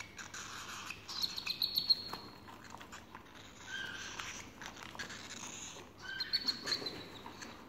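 Cockatiel chicks giving high, repeated begging calls while being hand-fed formula from a syringe. The calls grow louder about a second in and again about six seconds in.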